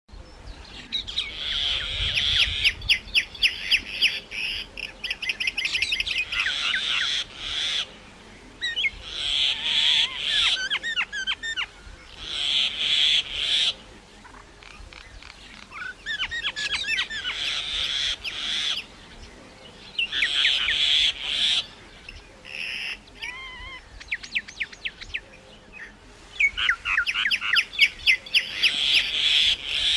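Myna calling in repeated bouts of rapid harsh chattering, each lasting a second or three with short pauses between, mixed with a few gliding whistled notes.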